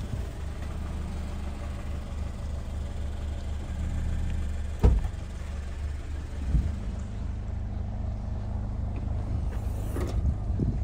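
Toyota 86's 2.0-litre four-cylinder engine idling steadily. A sharp knock about five seconds in, and a smaller one a second and a half later.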